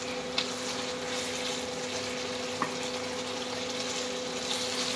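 Chicken pieces frying in masala in a nonstick pan, a steady sizzle, with a steady low hum underneath and a faint tick or two. The meat is cooking in the masala's own juices, no water yet added.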